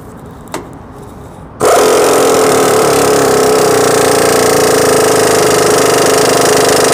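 Matco impact wrench hammering steadily for about five seconds, starting about a second and a half in and cutting off sharply, as it runs a nut back onto a truck's suspension bolt.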